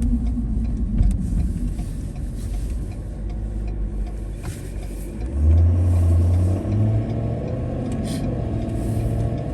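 Vehicle engine and road rumble heard from inside the cab while driving; about five seconds in, the engine note comes up strongly and steps higher as the vehicle accelerates, then holds steady.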